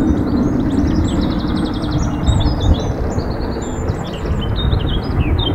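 Songbirds chirping and singing over a steady low rumble from a steam locomotive approaching in the distance.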